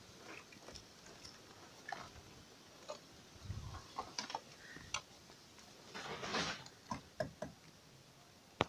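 Scattered light taps and clicks from hands handling plastic fittings and mesh inside a blue plastic barrel. There is a short stretch of rustling about six seconds in and a sharp click near the end.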